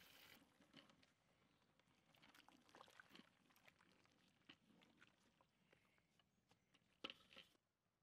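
Faint scraping and knocking of a wooden spatula stirring watery khichuri in a large aluminium pot, after a pour of water into the pot cuts off at the very start. A brief, louder clatter comes about seven seconds in.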